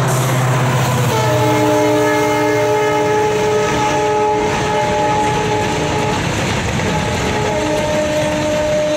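WDG4 diesel locomotive's multi-tone air horn sounding a long chord for about five seconds, starting about a second in, then sounding again near the end: the departure signal. The locomotive's diesel engine runs underneath.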